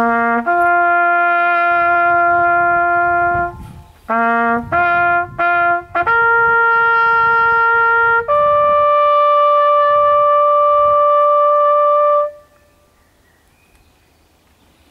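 Bugle playing the closing phrase of a military bugle call: a run of clear held notes with a few short ones in the middle, then two long rising notes, the last held for about four seconds and ending about twelve seconds in.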